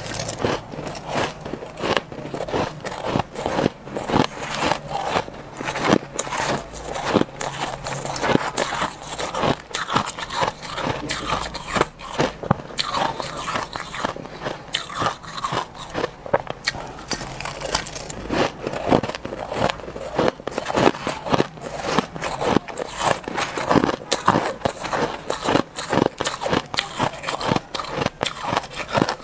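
Soft white ice (freezer frost) being bitten and chewed: a continuous run of crisp, irregular crunches and crackles.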